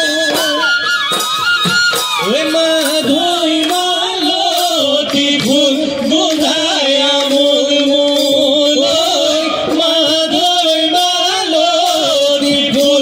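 Assamese Bihu folk music played live: dhol drums beat a steady rhythm under singing and a held, wavering melody line.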